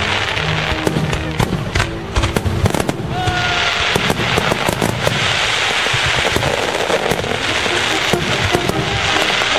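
Fireworks going off: a quick series of sharp bangs over the first three seconds, then a dense, continuous crackling. A short whistling tone sounds about three seconds in.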